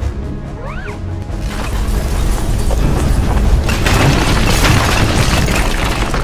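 Dramatic film-score music layered with deep booms and crashing sound effects, building in loudness through the second half, with a brief swooping tone about a second in.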